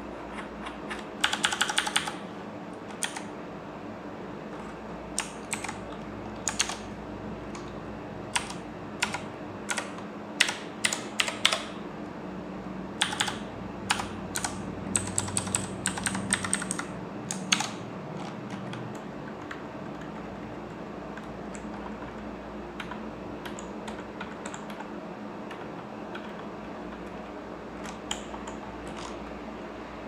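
Keys being pressed on a Redragon K586 Brahma mechanical keyboard with Outemu Blue clicky switches: irregular sharp clicks, with a quick flurry about a second in and scattered presses and short runs through the first half, then only a few faint presses in the second half, over a steady low hum.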